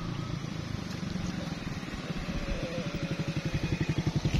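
A small engine running with a rapid, even beat that grows louder toward the end.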